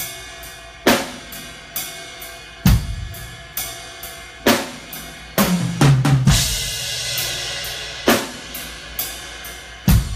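Acoustic drum kit playing a slow ballad groove: kick and snare hits about once a second, with hi-hat and ride. About halfway through, a short tom fill leads into a crash cymbal that rings on.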